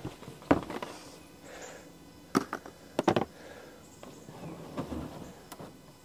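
A handful of sharp knocks and clunks from a rooftop RV air conditioner's plastic shroud being worked loose and lifted off the unit.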